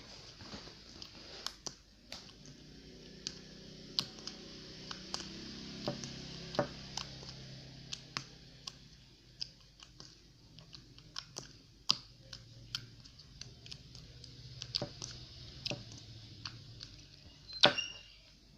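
Sticky, slightly soapy clear slime being kneaded and stirred by hand, giving off irregular sharp clicks and pops, with one louder click near the end. A faint low hum runs underneath.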